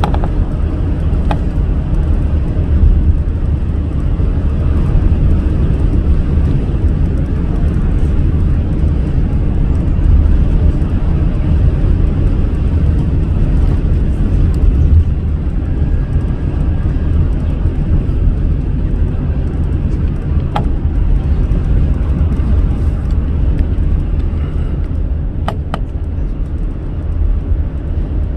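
Steady low rumble of road and engine noise from a car driving at speed, with a few brief clicks.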